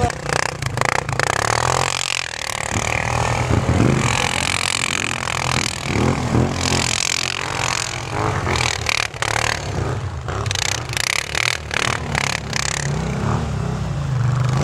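ATV engine running and revving as the quad drives across snow-covered ice, rising and falling with the throttle. Short scraping and clattering noises break in several times.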